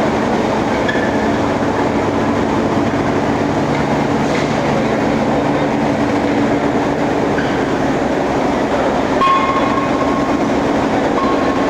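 Loud, steady din of forging-line machinery: a dense, unbroken rumble with a low hum under it and a short higher tone about nine seconds in.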